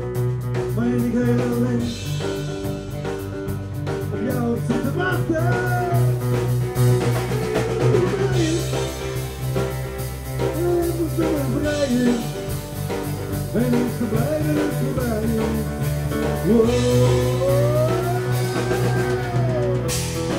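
Live band playing: electric guitar, electric keyboard and drum kit, with a male singer on the microphone.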